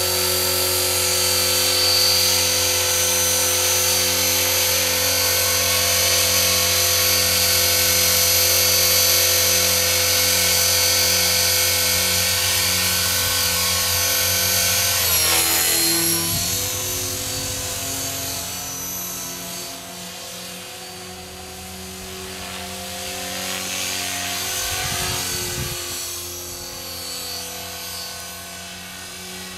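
Align T-Rex 500 DFC electric RC helicopter in flight: a steady whine of its motor and rotor blades, loud and close at first. About halfway through the pitch drops and the sound turns quieter and uneven as it flies farther off.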